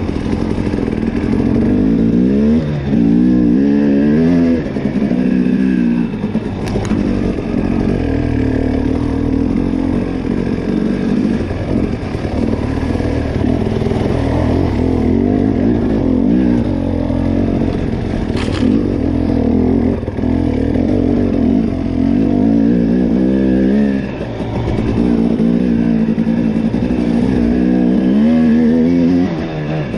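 Fuel-injected two-stroke (TPI) enduro motorcycle ridden on a muddy trail, its engine revving up and falling back again and again as the throttle opens and closes. Two sharp knocks come through, about seven seconds in and again past halfway.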